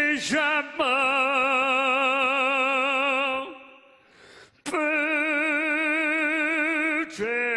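A man singing solo, holding long wordless notes with a wide, even vibrato. There are two held notes of about two and a half seconds each, separated by a short break a little past halfway, and each begins with a quick slide up in pitch.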